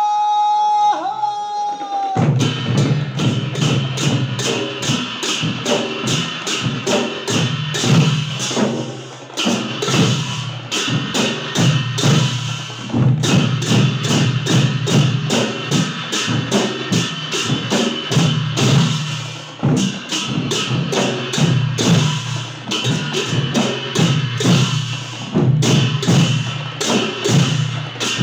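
Percussion music: drums beaten in a fast, steady rhythm, with hand cymbals clashing over them. It starts about two seconds in, after a single held high tone.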